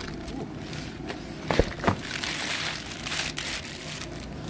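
Plastic wrapping crinkling and tearing as it is pulled off a new brake rotor, with two sharp clicks near the middle.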